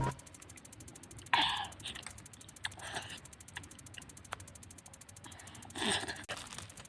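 Close mouth and breath sounds of people eating fruit: small wet clicks and bites, with two short breathy sniffs or gasps, one about a second and a half in and another near the end.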